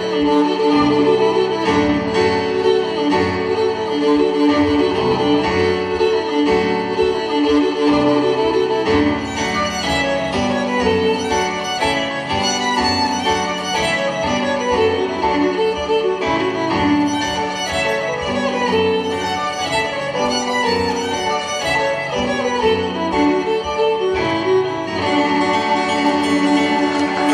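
Violin and grand piano playing a duet live, the piano keeping a repeating rhythmic accompaniment under the violin's melody.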